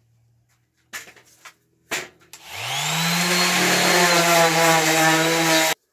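A couple of knocks, then a corded electric sander starts up with a rising whine and runs steadily on fir planter boards before cutting off suddenly near the end.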